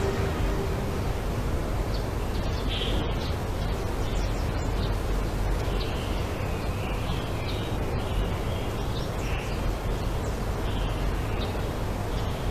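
Steady background hiss with scattered short, high bird chirps.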